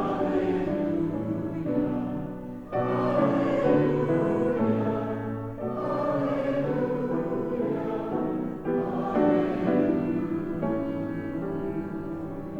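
A group of voices singing a hymn together, in sustained notes that move in steps, with a short breath between phrases about every three seconds.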